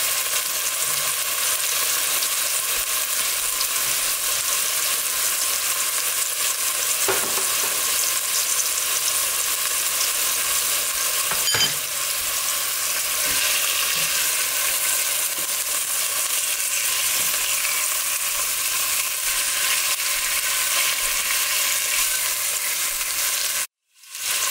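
Chicken pieces sizzling steadily as they fry in hot oil with ginger and garlic paste in a pot. A single sharp click sounds about halfway through. The sound cuts out for a moment near the end.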